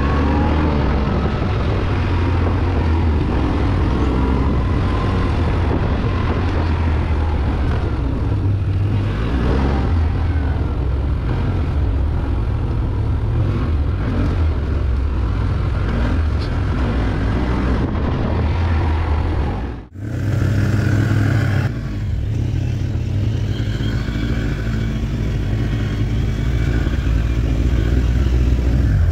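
Can-Am ATV engine running steadily under way, a continuous low drone; the sound drops out for an instant about two-thirds of the way through.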